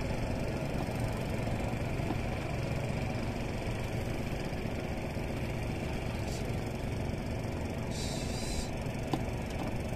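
An engine running steadily in the background, a low, even hum. A brief hiss cuts in about eight seconds in.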